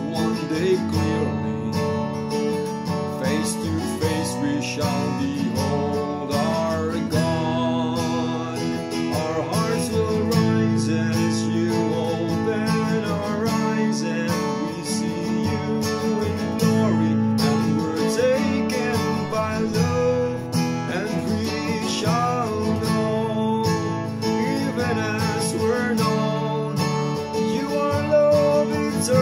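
A man singing a slow worship song to his own acoustic guitar, strummed steadily.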